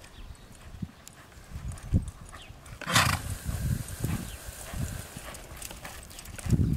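Hoofbeats of a young Quarter Horse filly jogging and loping under saddle on soft arena dirt: soft, irregular low thuds. A brief hissing burst about three seconds in is the loudest sound.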